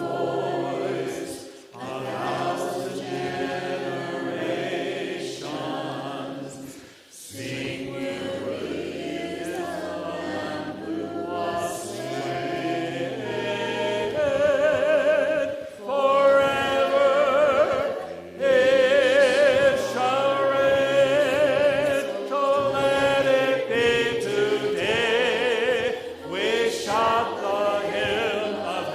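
A church choir singing a hymn, several voices together. From about halfway through, one voice with a strong vibrato rises above the rest.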